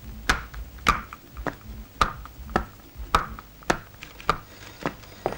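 Footsteps on a hard floor, evenly paced at about two steps a second, each a sharp tap.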